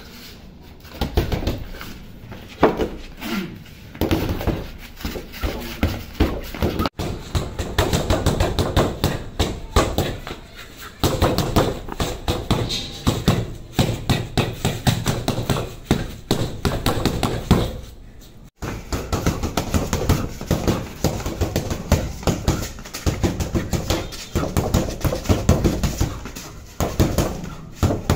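Boxing gloves thudding into a hanging heavy bag in quick, repeated punches. The sound cuts out abruptly twice.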